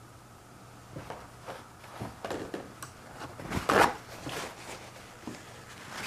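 Handling noise off-picture: a run of short, irregular scrapes and rustles, the loudest a little under four seconds in.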